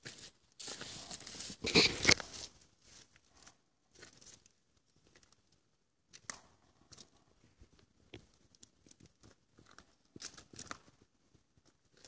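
Footsteps crunching irregularly on loose stone chips and gravel, with a louder scraping burst about two seconds in.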